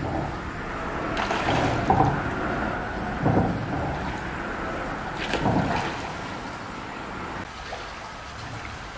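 Shallow stream running over rocks, with a few sloshing splashes as hands rake through the water and wading feet shift, strongest about a second in, around three seconds and around five and a half seconds.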